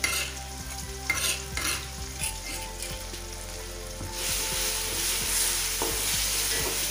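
Red chili spice paste frying with sliced shallots in hot oil in a wok, with a spatula stirring and scraping through it. A few light knocks come early, and the sizzle grows louder about four seconds in as the paste is stirred into the oil.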